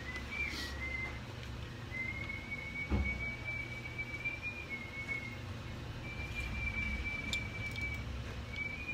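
A person whistling long, nearly steady high notes in a few drawn-out phrases with brief breaks, the pitch wavering only a little. A single knock sounds about three seconds in.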